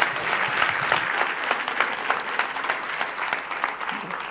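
Audience applauding, many hands clapping at once, thinning out and growing quieter near the end.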